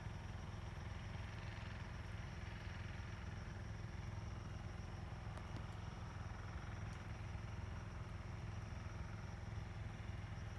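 A steady low engine hum, like an engine idling, with no change in pitch or level.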